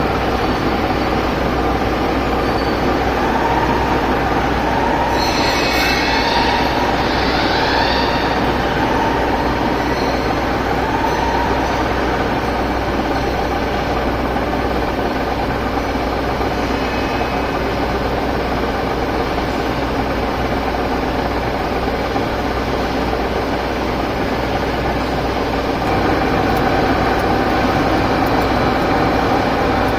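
CNC milling machine with a Fanuc 0-M control running: a steady mechanical hum with motor whine. A few short rising whines come about five to eight seconds in, and the tone grows louder and changes near the end.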